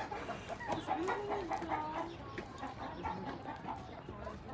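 Chickens clucking.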